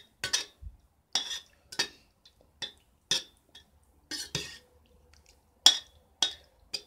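A spoon clinking against a dish or container, about ten light, sharp clinks at irregular intervals.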